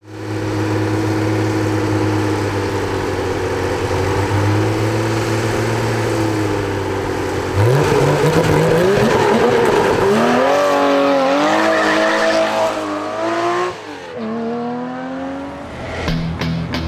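Classic Porsche 911's air-cooled flat-six idling steadily with small blips of throttle. About halfway through it launches from a standstill and accelerates hard, revs climbing with two upshifts, then fades as it pulls away.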